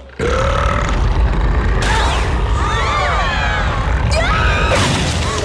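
A long, loud cartoon burp, the 'sonic burp', that starts suddenly just after the opening and rumbles on for about five seconds, with high sliding squeals over it in the second half.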